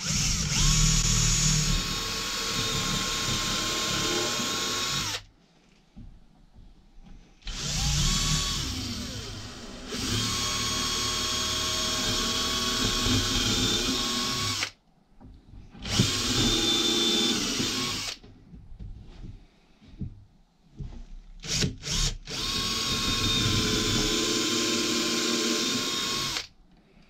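Cordless drill running with a steady whine as it drills into the end of a softwood drawer box, in four runs of a few seconds each with short pauses and a couple of brief blips between.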